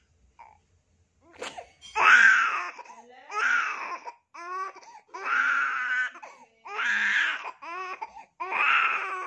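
Baby crying in a string of about six wailing cries, each about a second long with short breaks, starting about two seconds in; he is upset at being massaged.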